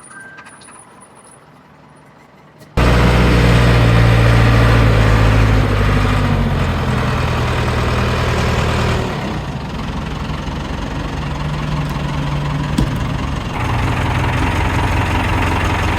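Heavy equipment engine, the Ford 555 backhoe's, running loud and close, cutting in abruptly a few seconds in. It eases off about nine seconds in and picks up again about four seconds later.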